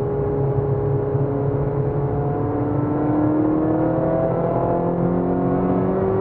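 Peugeot 206 RC's 2.0-litre four-cylinder engine pulling under acceleration, its pitch climbing steadily from about two seconds in, heard from inside the cabin along with road noise.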